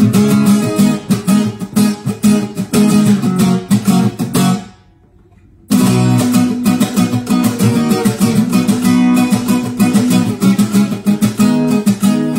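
Background music: a strummed acoustic guitar playing chords in a steady rhythm, cutting out for about a second near the middle before resuming.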